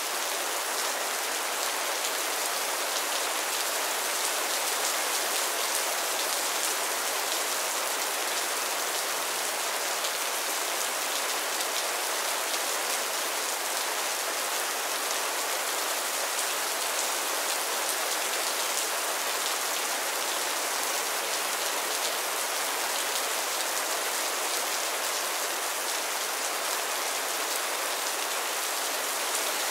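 Heavy rain falling steadily: a dense, even hiss of rain on surfaces, flecked with the ticks of individual drops.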